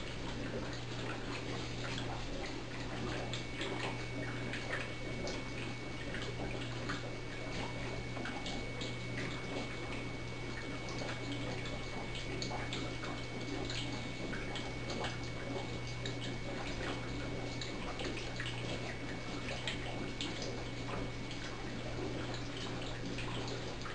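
HHO dry cell running: the electrolyte bubbling and fizzing with many small scattered pops, over a steady low electrical hum and a faint steady high whine. The cell is just starting to make gas.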